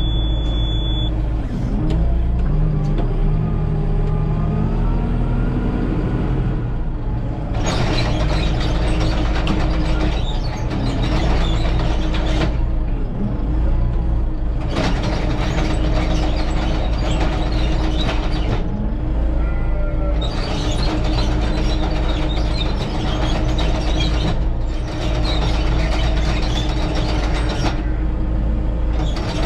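Tractor engine running, heard from inside the cab, rising in pitch in the first few seconds as it revs. Several stretches of a few seconds each of louder rushing noise come and go over the steady engine hum.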